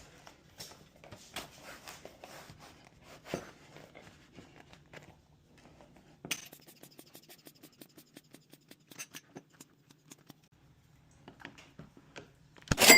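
Lock-picking tools scratching and clicking inside a door lock, with a long run of rapid, evenly spaced clicks in the middle. A loud metallic clack with a brief ring comes near the end.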